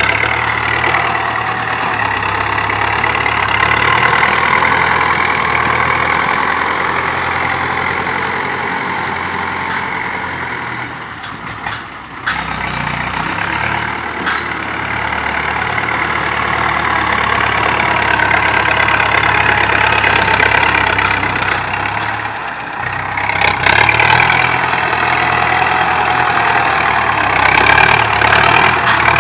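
Farm tractor's diesel engine running while it grades freshly dug soil with a front dozer blade, pulling a disc plough behind. The engine note swells and eases as it works, with a brief drop about twelve seconds in.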